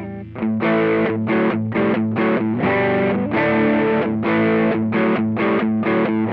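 Electric guitar overdriven through an Ibanez Tube Screamer pedal: after a chord dies away, a chugging riff of short, choked distorted chords at about three hits a second.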